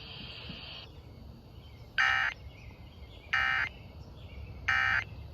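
Three short bursts of NOAA Weather Radio SAME digital data tones, each about a third of a second long and about 1.3 s apart, over faint radio hiss: the end-of-message signal that closes an Emergency Alert System broadcast.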